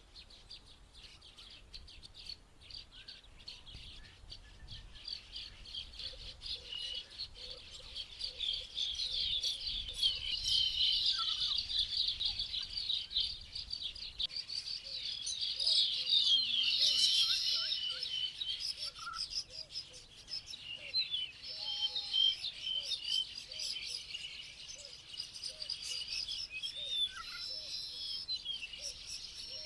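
Many small birds chirping at once: a dense, continuous chatter of short high chirps, loudest around the middle, with a softer lower note repeating at an even pace through the second half.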